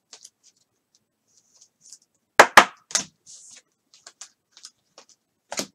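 Trading cards and card packs being handled: scattered light clicks and faint rustling, with two sharp snaps about two and a half seconds in and another near the end.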